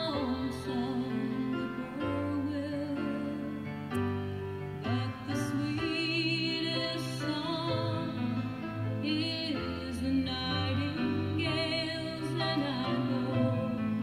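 Song with a woman singing long notes with vibrato over a soft instrumental backing.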